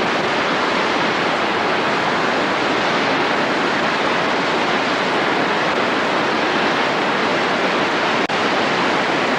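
Steady, loud rush of Mena Creek floodwater still flowing hard, with a brief dropout for an instant near the end.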